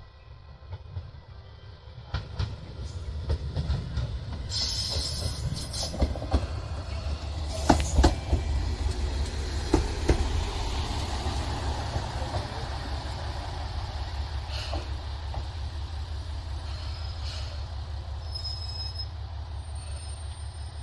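Ibara Railway IRT355 diesel railcar pulling into a station: a steady diesel engine hum, wheels running over the track with several sharp knocks, and a brief high squeal near the end as it brakes to a stop.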